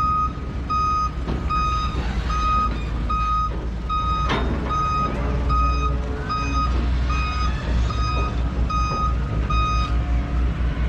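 An excavator's warning alarm beeping steadily, nearly two beeps a second, over the low running of its diesel engine. There is a single sharp clank about four seconds in, and the beeping stops near the end.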